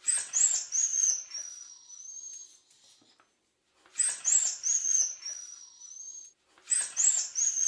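Dog whining: three near-identical bouts of high-pitched whimpers about every three seconds, each opening with a few quick falling cries and trailing off into a thin, drawn-out whine.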